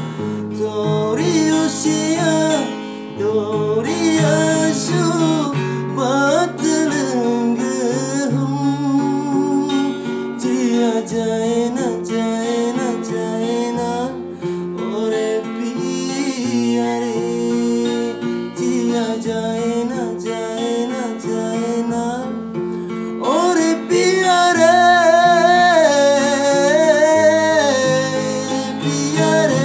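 A man singing to his own strummed acoustic guitar, the chords changing every couple of seconds; his voice grows louder and higher about 24 seconds in.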